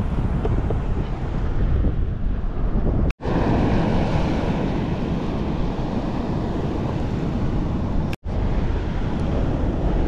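Wind buffeting the action camera's microphone over choppy sea water, with waves washing around the kayak. It is a dense, steady rumble, broken twice by brief, complete dropouts.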